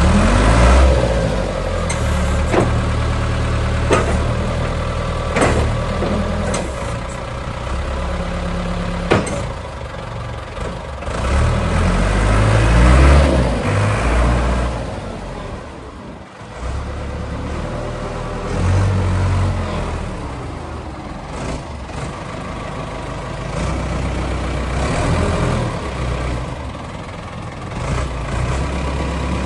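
Diesel engine of a Ford New Holland 655C backhoe loader running, its speed rising and falling several times. Several sharp knocks sound in the first ten seconds or so.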